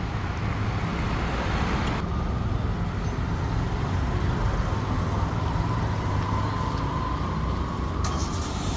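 Steady street traffic noise: the rumble of passing vehicles on a busy city road, changing abruptly about two seconds in and again near the end.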